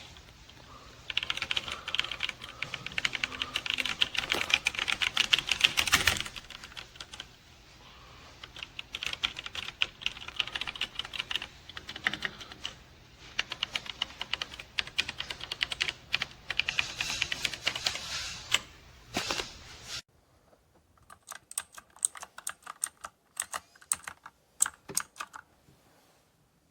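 Typing on a MageGee 75% mechanical keyboard with red switches: fast runs of key clicks, then about two-thirds of the way in, sparser separate keystrokes over a quieter background.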